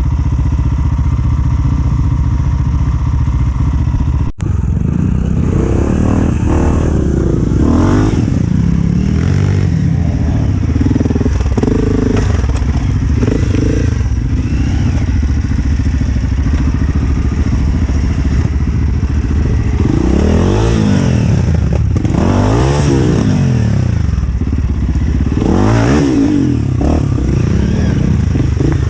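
Dirt bike engine running continuously, revved up and back down several times. There is a brief break in the sound about four seconds in.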